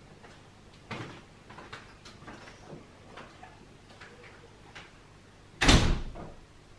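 A run of light clicks and knocks of household handling, then one loud thump near the end, like a door shutting.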